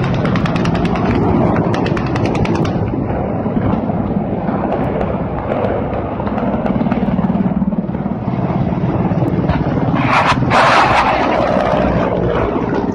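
Low-flying military helicopters passing, a steady drone of rotors and turbine engines. For the first couple of seconds it carries a rapid, even ticking, and about ten seconds in a short loud rush of noise rises over it.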